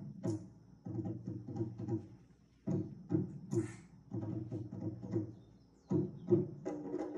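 Hula drumming: low drum strokes about three a second, in groups of three to five with short pauses between them, and a short hiss about three and a half seconds in.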